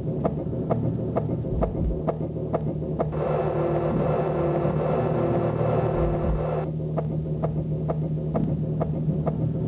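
Noisy electronic soundtrack: a steady low hum under a regular ticking pulse of about four clicks a second. The clicks drop out for a few seconds in the middle while a higher steady tone takes over, then return, with a few low throbs.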